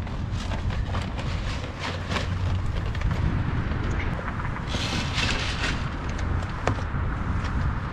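Wind rumbling on the microphone, with scattered light clicks and taps over it.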